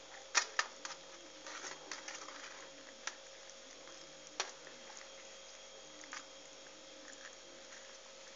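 Hands working rice filling and cabbage leaves in a metal pan: a few sharp clicks and taps, the loudest two about half a second in, with soft rustling around two seconds in.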